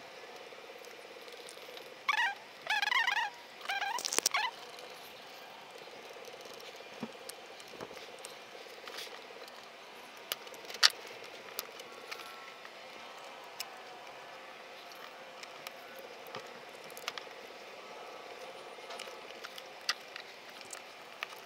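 Sped-up footage of an RC rock crawler being reassembled by hand. About two seconds in there are a few seconds of squeaky, high-pitched chatter, then scattered light clicks and taps of plastic parts and small screws.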